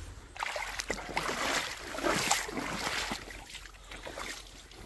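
Irregular scuffing and rustling from someone moving about on a small boat, busiest in the first three seconds and easing off toward the end.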